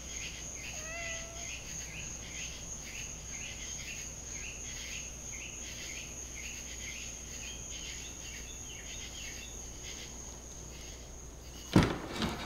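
Night-time crickets and other insects chirping in a regular rhythm over a steady high insect trill. Near the end a loud thump cuts in.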